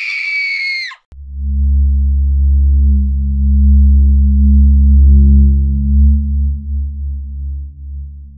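A high-pitched scream held for about a second, then cut off abruptly. It is followed by a loud, steady, low droning horror-film score of deep sustained tones.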